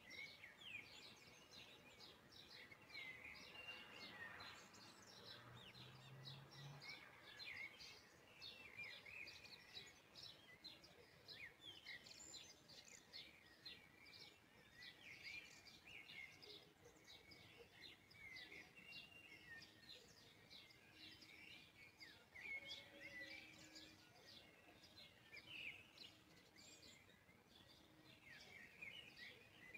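Faint birdsong: many small birds chirping continuously in quick, high-pitched glides.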